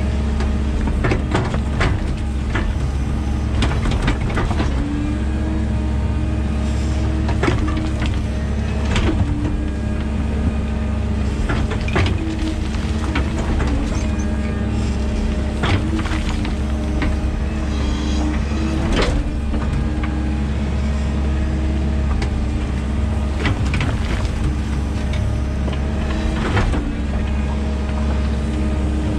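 A 13-ton excavator's diesel engine running steadily under load as the bucket digs through a heap of soil and rubble, with irregular knocks and scrapes of stones against the steel bucket.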